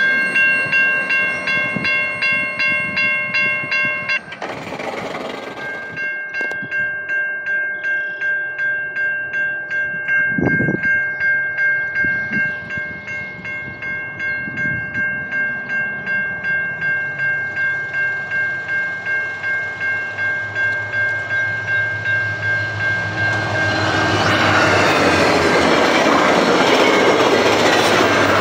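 Level-crossing warning bell ringing about twice a second while trains pass, breaking off briefly about four seconds in. From about twenty-three seconds a VIA Rail F40PH diesel locomotive passes close by, with a loud rush of engine and wheel noise that becomes the loudest sound.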